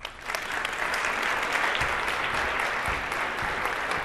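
Large audience applauding. The clapping swells quickly just after the start, then holds steady.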